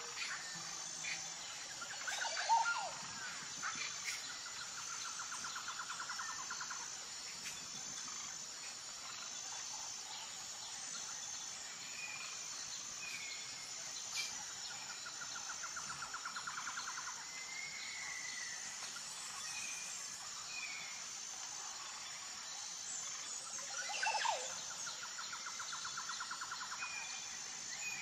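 Woodland ambience: a steady high insect chirring with evenly pulsing notes, over which birds give short chirps and repeated fast trills. A louder bird call comes about two and a half seconds in and again near the end.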